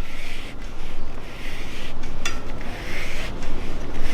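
Fingers rubbing along the inside of a bicycle tyre casing, feeling for glass or anything protruding after a puncture, in repeated scraping swells. A light click with a brief ring about two seconds in.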